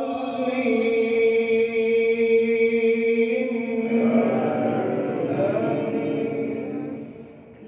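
Quran recitation in tajweed style: a solo voice holds one long, steady chanted note, then moves into a wavering melodic phrase about four seconds in that fades away near the end.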